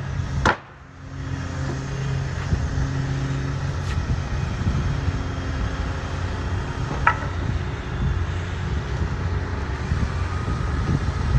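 Case CX210 long-reach excavator's diesel engine running steadily while the repaired dipper arm is raised and swung. A sharp click comes about half a second in and a short clink about seven seconds in.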